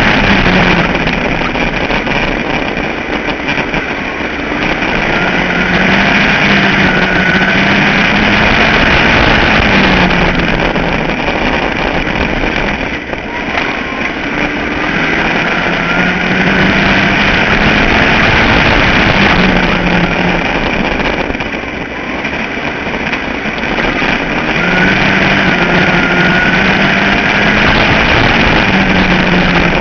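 Ford Focus midget race car's four-cylinder engine running at racing speed, building up and then easing off about every nine seconds, lap after lap, over a steady rushing noise.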